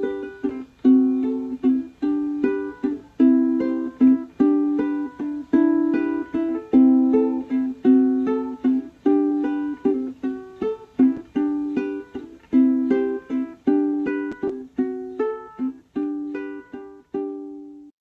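Light, upbeat plucked-string music: short picked notes and chords, about two to three a second, each ringing briefly and fading.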